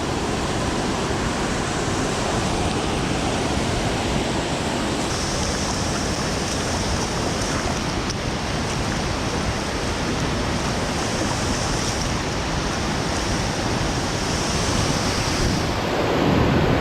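Steady rushing of river water, an even noise with no breaks, with a higher hiss added from about five seconds in until near the end.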